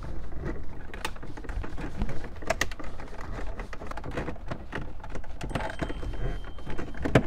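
Screwdriver working T20 Torx screws out of a car's plastic upper dash trim: irregular small clicks and ticks of the tool turning in the screw heads and knocking the trim, with a louder click near the end.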